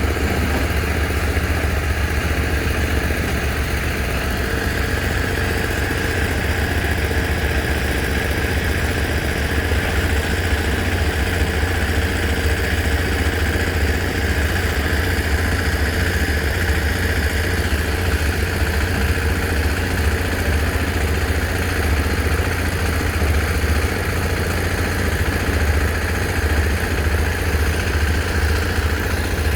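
A heavy machine's engine running steadily at a constant speed, a deep pulsing rumble with a steady whine above it.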